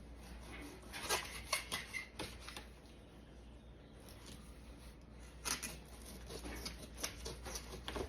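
Knife slicing raw steak on a cutting board: irregular soft cuts and light taps of the blade on the board.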